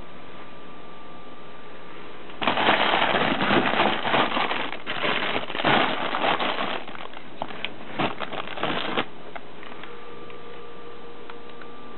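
Plastic food packaging crinkling and rustling as a hand moves bags around on a cabinet shelf, starting about two and a half seconds in and stopping about nine seconds in.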